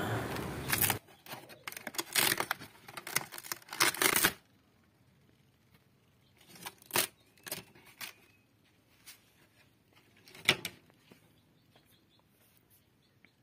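Hands handling the termite-eaten wooden parts of a homemade pantorouter: dry scraping, crumbling and cracking of the rotten wood for the first few seconds, then a few scattered knocks and cracks with near silence between them.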